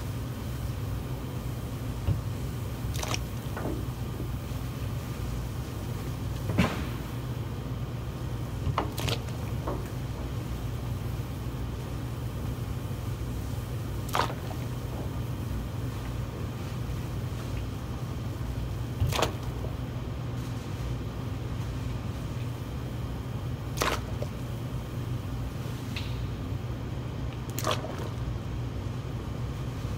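Steady low hum of commercial kitchen equipment, with about nine sharp knocks and clinks scattered through it as things are handled at the steaming steel pot.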